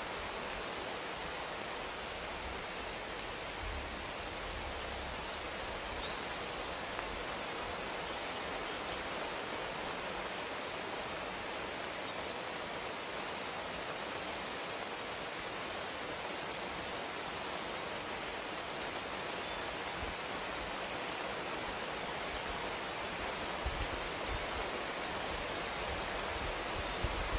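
Steady rain hiss. A faint, high chirp repeats about once a second, and a few low thuds come near the end.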